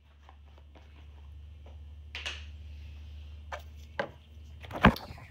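A few scattered light clicks and knocks of objects being handled, the loudest near the end, over a steady low hum.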